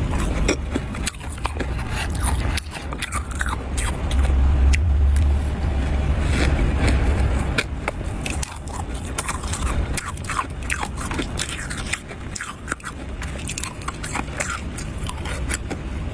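A spoon scraping and crunching through frost in many short, irregular scratchy strokes. A low rumble joins in about four seconds in and lasts a few seconds.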